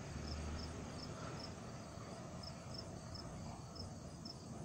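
A cricket chirping: short high chirps repeating at an even rhythm, a few a second, over a faint low background rumble.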